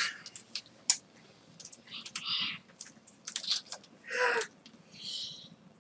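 Trading cards being handled, with faint clicks and rustles, a few soft breathy noises, and a short vocal sound from a child about four seconds in.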